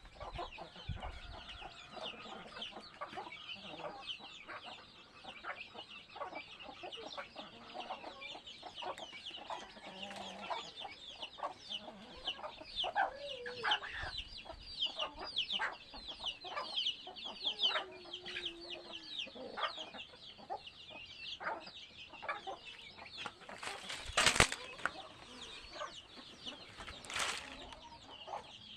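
Chickens clucking over a constant chorus of high, rapid chick peeping. Now and then a lower hen call slides down in pitch. Two brief, sharp louder noises come near the end.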